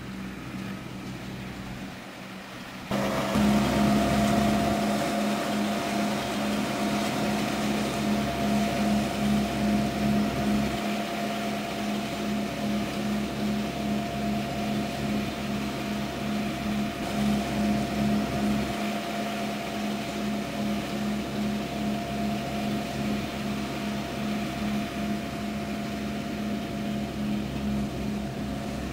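Tractor engine and its mounted three-section grass mower running steadily while mowing. The sound jumps louder about three seconds in, then holds an even hum with a steady higher tone over it.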